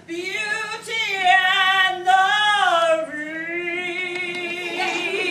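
A woman singing long, drawn-out notes with vibrato. The first held phrase lasts about three seconds and is followed by a lower held note.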